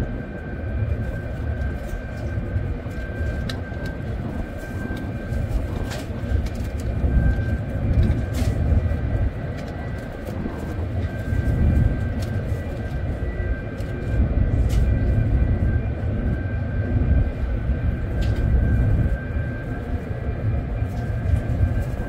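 Steady low rumble of a ship's machinery with a thin, even whine above it. The rumble swells and eases every few seconds, with a few faint clicks.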